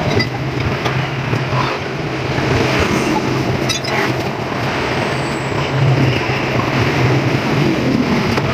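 A steady engine-like mechanical hum, with a few light metal clinks of tools being handled around the scooter's front end.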